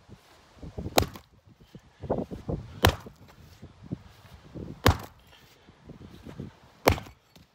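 Axe chopping into a weathered wooden plank: four sharp strikes about two seconds apart, with softer knocks of the wood pieces between blows.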